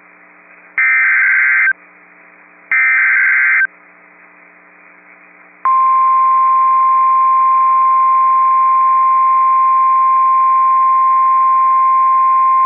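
NOAA Weather Radio Emergency Alert System activation: two short bursts of the digital SAME header, about a second apart, then about five and a half seconds in the steady 1050 Hz warning alarm tone starts and holds. The alert signals a flash flood warning being broadcast.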